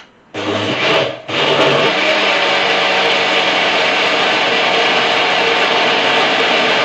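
Countertop blender switched on with a click of its dial, blending coconut and water. The motor starts about a third of a second in, cuts out briefly about a second in, then runs loud and steady.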